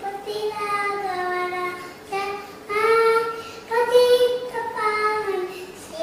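A young boy singing a slow song solo, holding each note for about half a second to a second.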